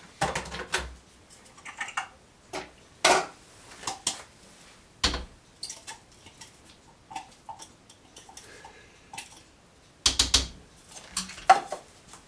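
Kitchen clatter of utensils and dishes as chopped peppers are moved from a bowl into a crock pot: scattered light clinks and taps, with a few louder knocks.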